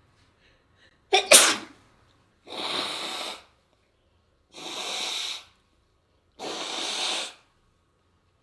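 A person sneezing once, sharply and loudly, about a second in, followed by three long, noisy breaths about two seconds apart.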